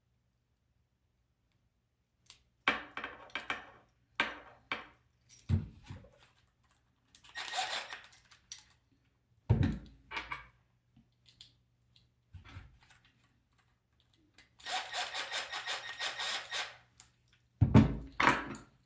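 Small metal and plastic kit parts being handled: screws, nuts and a small wrench clicking, rattling and knocking in scattered bursts, with a longer run of quick rattling strokes about fifteen seconds in and heavier knocks about ten seconds in and near the end.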